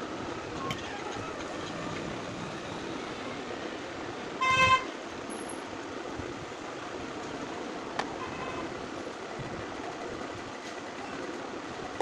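A vehicle horn toots once, briefly and loudly, a little before halfway, over steady background noise. Small clicks come from wires being handled.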